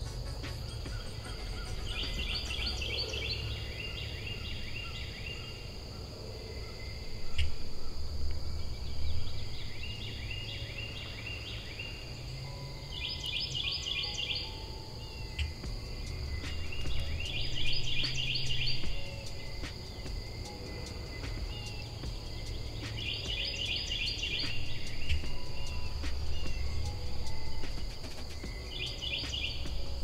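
Spring field ambience: a small songbird repeats a short, rapid trill about every four to six seconds over a steady high insect buzz, with a low rumble that swells twice.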